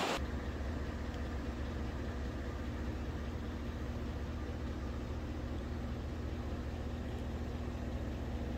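Steady low mechanical hum of a running engine, with a faint steady tone over it and no change in speed.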